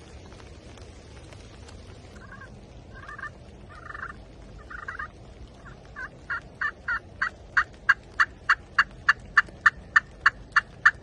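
Turkey yelping: a few soft, scattered yelps, then a long, even run of sharp yelps, about three a second, getting louder and ending near the close, over a steady hiss of wind and rain.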